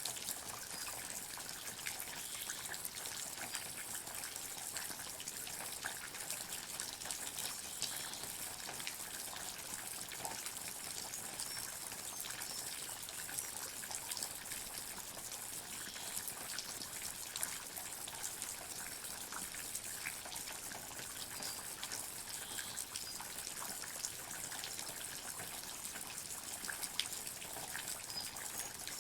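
Water dripping and trickling in a forest: many small drops landing in scattered, irregular clicks over a steady hiss of running water.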